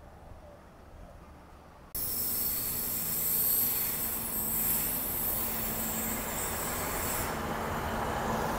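Hunter diesel railcar set running in alongside the platform: steady rumble of engine and wheels on rail with a high-pitched wheel hiss, starting abruptly about two seconds in. The high hiss fades about seven seconds in while the rumble carries on.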